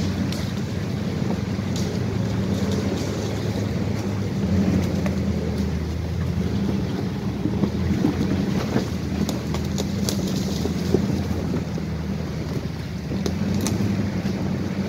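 Off-road vehicle engine running steadily, with scattered knocks and rattles.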